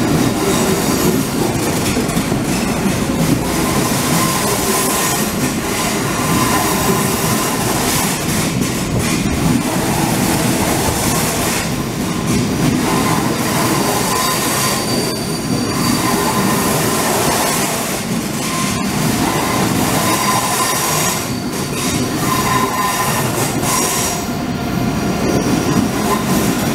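ICE 3 high-speed train rolling slowly past along the platform: a steady loud rumble of wheels on rail, with high, thin wheel squeals that come and go.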